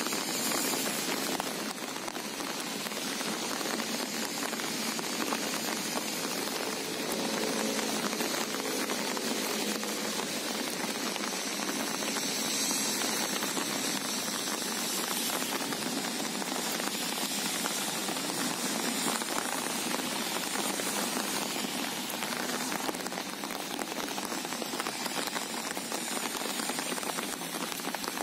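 Steady rain falling, a dense even hiss of drops.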